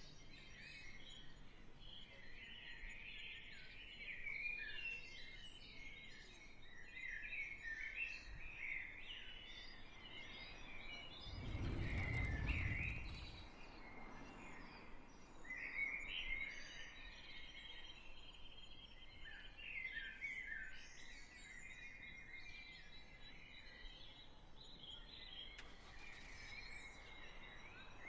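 Small birds chirping and twittering in a low outdoor ambience. A brief low rumble comes about twelve seconds in.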